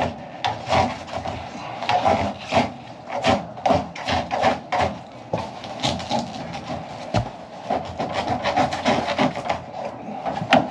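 Repeated scraping and knocking of an evaporator coil's sheet-metal casing against the furnace cabinet as it is wiggled loose and lifted out, in uneven strokes about two or three a second.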